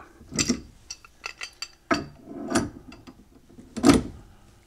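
Pipe wrench clinking and knocking against black iron gas pipe and a heavy brass valve fitting as it is turned and reset to tighten a threaded joint: a run of sharp metal clicks, the loudest knock near the end.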